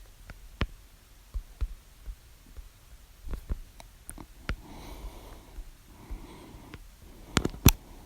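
A person hiccupping: short, sharp hiccups every second or so with breathing in between, the loudest two coming close together near the end.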